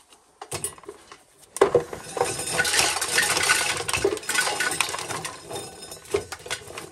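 Hand-cranked corn sheller stripping a cob, with dry kernels clattering and rattling down. A few scattered clicks come first, then thick clattering from about a second and a half in that thins out near the end.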